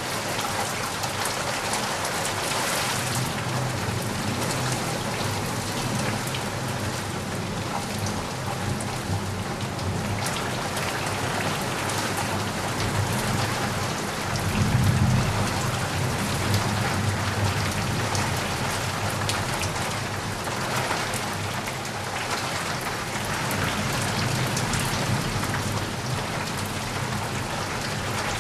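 Steady rain falling on a surface, with many fine drop patters through a continuous hiss. A low rumble swells briefly about halfway through.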